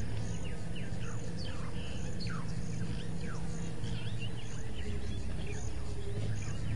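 Evening bush chorus: insects pulse in a steady rhythm about twice a second, high-pitched, while birds give short falling chirps over it. A low steady hum runs underneath and grows a little stronger near the end.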